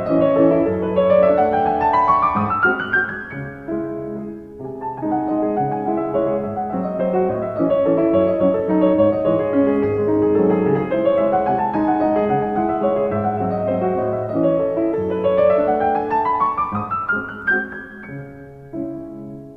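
Solo piano music playing a flowing piece, with rising runs of notes about two seconds in and again near the end.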